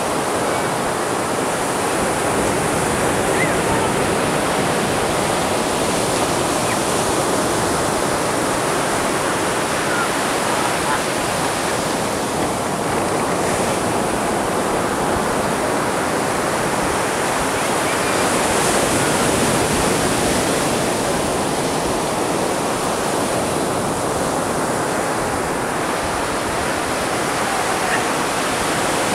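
Atlantic Ocean surf: waves breaking and washing in on a sandy beach, a steady rushing that swells every several seconds as another wave breaks.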